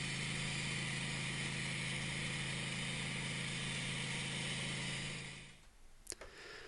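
Wood-Mizer LT15 sawmill running steadily, a constant machine drone that fades out about five and a half seconds in.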